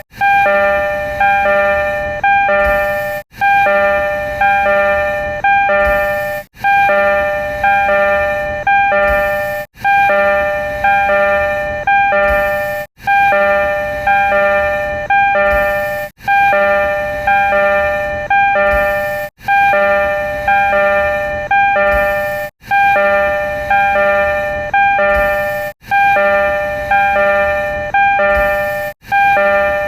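Door chime of a refurbished Tokyo Metro 02 series train: a short phrase of several bright electronic tones, repeated in a loop about every three seconds.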